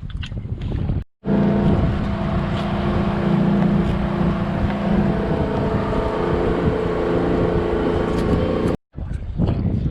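An engine running at a steady speed, an even drone with several held tones, set between two abrupt cuts. Before the first cut there is wind buffeting the microphone.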